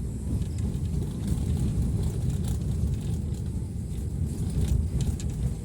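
A vehicle on the move, heard as a steady low rumble of engine and road noise.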